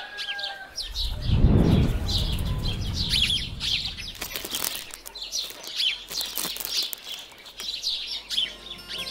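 Small birds chirping and twittering continuously, many short quick calls. A low rumble swells about a second in and fades out by about four seconds; it is the loudest sound.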